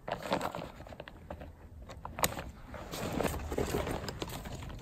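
Rustling and crinkling of a lightweight backpack's fabric as it is handled and lifted, with scattered light clicks and one sharper click about two seconds in.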